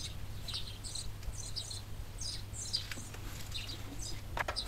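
Small birds chirping in short, irregular high calls, over a steady low hum, with a few sharp clicks near the end.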